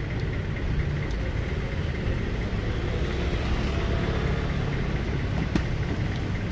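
A steady low rumble like an idling engine, with one light click about five and a half seconds in.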